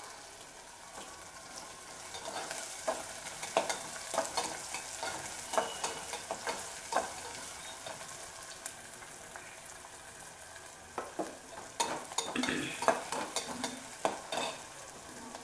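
Onions, green chillies and curry leaves sizzling in hot oil in a metal pot, with a metal spatula stirring and scraping against the pot in short, uneven strokes, busiest about eleven to fourteen seconds in.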